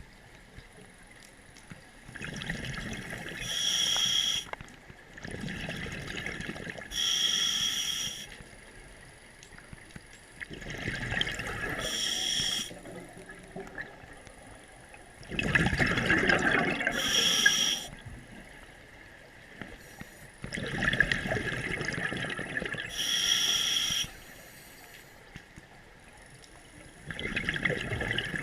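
Scuba diver breathing through a regulator underwater: each breath is a hiss of inhaled air followed by a gurgling rush of exhaled bubbles, repeating about every four to five seconds.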